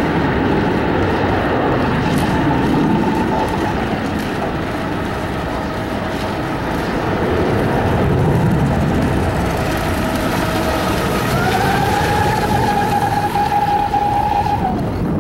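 Radio-controlled catamaran speedboat running flat out across the water, its motor giving a steady whine that climbs in pitch about eleven seconds in and drops away near the end, over a rushing noise of wind and water.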